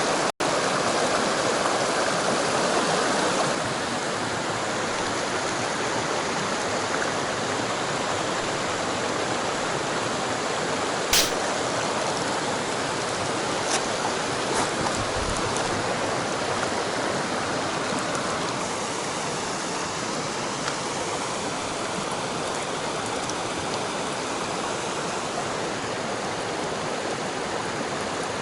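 Mountain stream water rushing steadily, a bit louder for the first few seconds. A single sharp click about eleven seconds in and a few faint ticks soon after.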